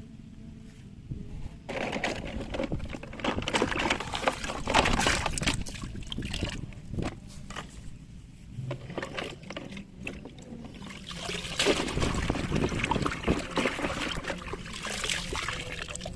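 Water pouring and splashing over plastic toy vehicles being washed, in two long spells with a quieter gap in the middle.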